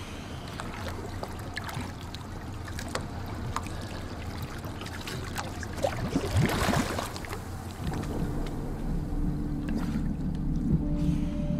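Water sloshing and splashing around a diver at the surface beside a small boat, with a louder splash about six seconds in as he goes under. From about eight seconds a low steady hum joins in.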